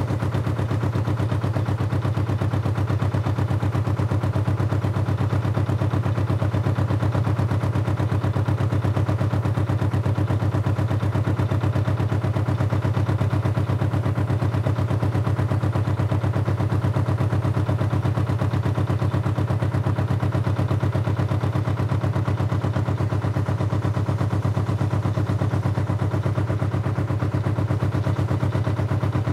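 Engine running steadily at a constant speed, with a fast, even chugging.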